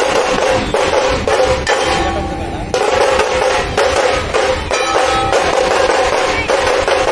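Dhol-tasha ensemble drumming: massed dhol barrel drums with tasha drums playing a fast, dense rhythm of continuous strokes.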